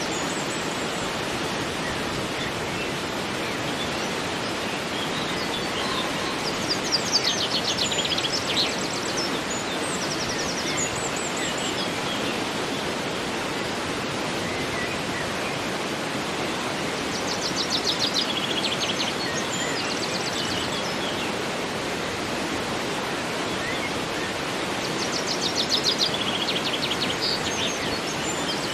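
Steady rushing of a flowing river, with a songbird's quick trilled song breaking in three times, roughly ten seconds apart.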